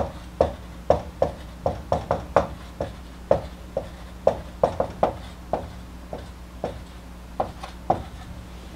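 Dry-erase marker tapping and stroking on a whiteboard while a line of symbols is written: a string of short, irregular taps, about three a second, that stop near the end.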